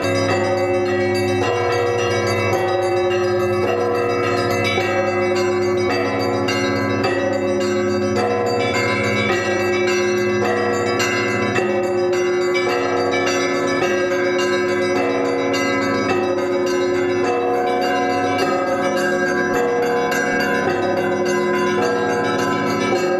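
Russian Orthodox monastery bells rung in a continuous festive Easter-week peal. Smaller bells chime in a quick repeating pattern over the sustained ring of a deep bell.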